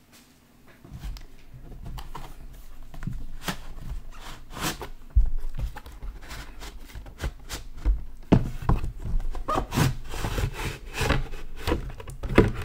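Cardboard and plastic packaging of a large trading-card box being unwrapped and handled: rubbing and scraping with scattered knocks and thumps, busier in the second half.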